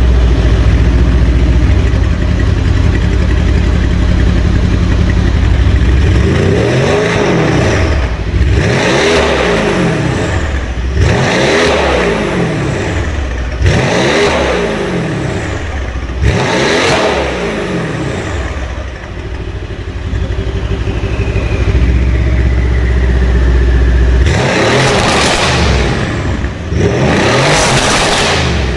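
Mercedes-AMG C63 (W205) 4.0-litre twin-turbo V8 through an Akrapovic Evolution exhaust, running steadily at first and then revved in about five throttle blips, each rising and falling, with sharp cracks as the revs drop. It settles back to a steady note and is revved once more near the end.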